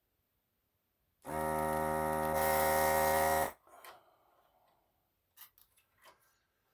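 Electric desoldering tool's vacuum pump buzzing steadily for about two seconds, getting louder partway through, then cutting off suddenly as solder is sucked off the board's joints. A few light clicks and taps follow.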